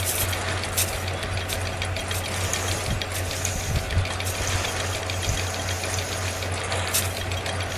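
Small motor of a DIY mini tractor running steadily with a low hum, with scattered light clicks and rattles over it.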